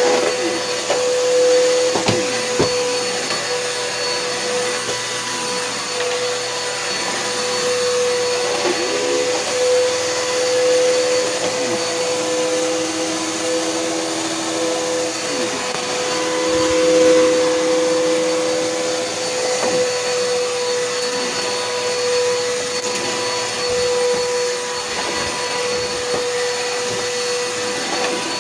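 Bissell PowerForce Helix upright vacuum cleaner running steadily, its motor giving a constant high whine over rushing air. A lower second tone joins the whine from about halfway through for several seconds. There are a few light knocks near the start.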